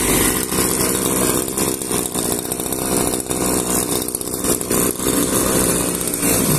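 Small two-stroke Zenoah G2K engine on a wheeled push-type grass cutter running steadily, a few seconds after starting up.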